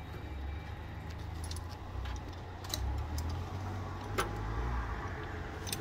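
Scattered light metallic clinks and clicks from handling tools and parts, with one sharper click about four seconds in, over a low rumble.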